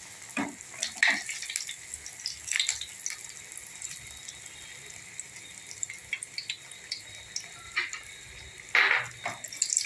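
Bread rounds frying in hot oil: a steady high sizzle with scattered crackles and pops.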